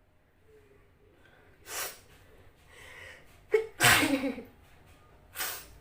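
A woman sneezes once, loudly, about four seconds in, with a quick breath in before it and another short breath near the end. The sneeze is provoked by tickling the inside of her nose with a twisted cotton napkin.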